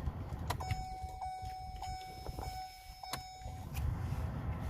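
Hyundai i20 engine running with a steady low rumble, heard from inside the cabin, just after being started. A steady high tone sounds over it for about three seconds, with a few sharp clicks.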